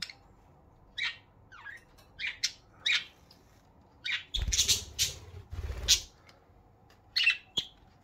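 Budgerigar chirps and short squawks, several brief sharp calls spaced through. About four seconds in comes a louder rustling stretch lasting about a second and a half.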